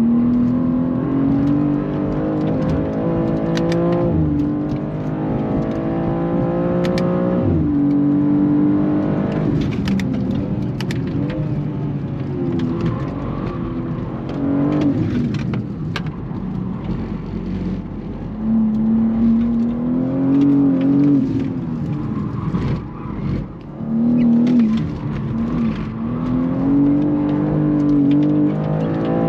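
BMW G87 M2's twin-turbo inline-six, heard inside the cabin, pulling hard on a track lap. The pitch climbs and drops sharply twice with quick upshifts in the first eight seconds, then falls and rises again several times as the car brakes and powers out of corners.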